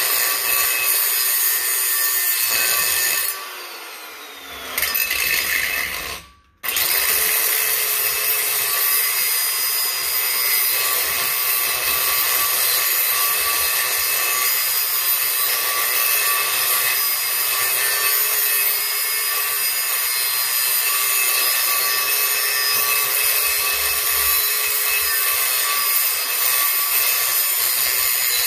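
Angle grinder cutting into a steel yard tractor wheel rim along the weld, running steadily with a motor whine. A few seconds in it eases off with its whine falling, then there is a short break before the cut resumes.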